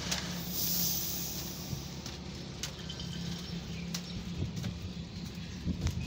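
A steady low machine hum, with a few light clicks and a brief hiss about half a second in.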